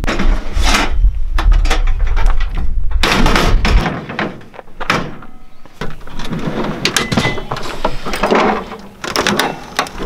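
Clunks, knocks and clatter of cooking gear being handled in a ute's rear drawer system, with drawers sliding and a two-burner gas camp stove being set out. A deep low rumble sits under the first four seconds and then stops suddenly.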